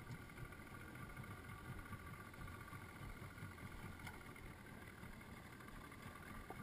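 Faint, steady low rumble with hiss from a small aluminium river boat on the water.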